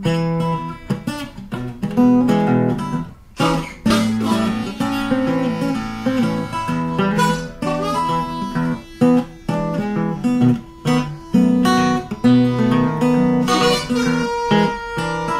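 Acoustic guitar music with plucked and strummed notes and a harmonica line.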